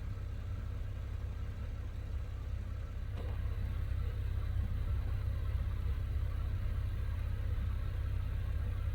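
Car driving steadily along a road: a low, even engine and road rumble that grows slightly louder about three seconds in.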